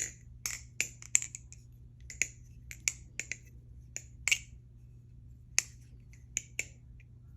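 Aluminium barebones balisong clone being flipped: sharp metallic clicks in an irregular rhythm as the handles swing about their pivots and clack together. The clicks come in quick runs, with a pause of about a second partway through.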